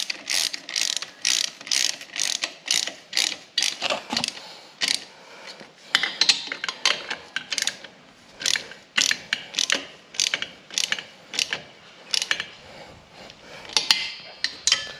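Ratchet wrench clicking in quick runs of back-and-forth strokes with brief pauses between runs, tightening the bolts of a newly fitted motorcycle exhaust.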